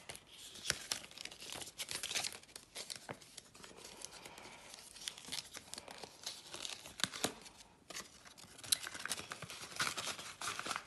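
Paper banknotes and a cash envelope being handled: the bills crinkle and rustle with many light clicks and taps, busiest near the end as the envelope is picked up and handled.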